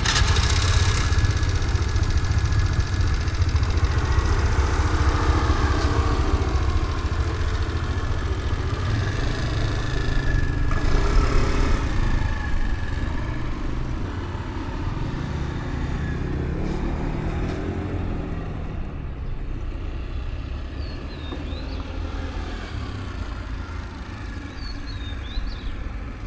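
Small motorbike engine running as it is ridden, its pitch rising and falling as it speeds up and slows, over a heavy low rumble.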